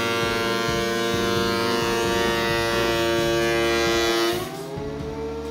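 DeWalt DW735 thickness planer running under load as an end grain board feeds through, a steady machine whine. About four seconds in, the board clears the cutterhead: the sound drops in level and the whine rises slightly in pitch as the motor unloads.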